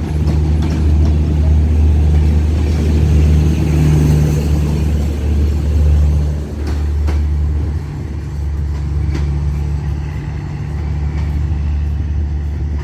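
Train running with a loud, steady low rumble and a few faint clicks.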